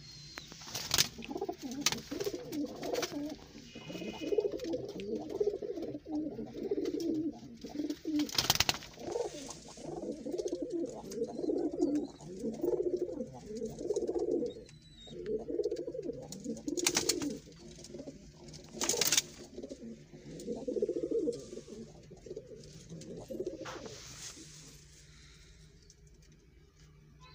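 Domestic pigeons cooing over and over, low, wavering calls that overlap one another and die away near the end. A few sharp knocks cut in between the calls.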